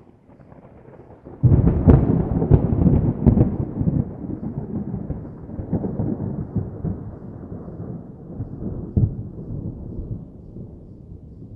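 Thunder: a faint low rumble, then a sudden loud crackling clap about a second and a half in, with several sharp cracks. It then rolls on and slowly fades.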